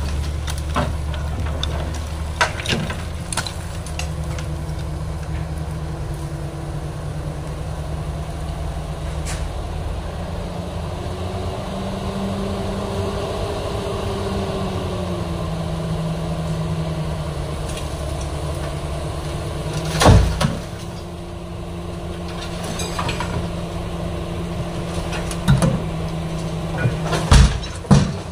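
Hydraulic excavator's diesel engine running under working load, its pitch rising and falling for a few seconds as the boom swings, with sharp metallic clanks of scrap and bucket; the loudest bang comes about two-thirds of the way through.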